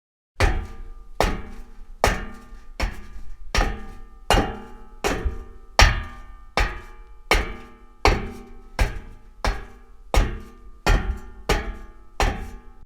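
Footsteps walking at a steady pace on a metal grate, each step a sharp clank with a short metallic ring, about one step every three quarters of a second.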